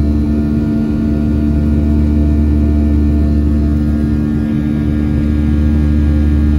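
Boeing 737-700's CFM56-7B jet engines at climb power, heard inside the cabin as a steady drone with a low hum of several held tones.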